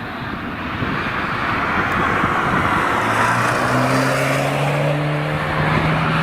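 BMW M135i test car approaching at speed, a rushing noise growing louder before its engine note comes through about halfway in and rises slowly as it nears and passes.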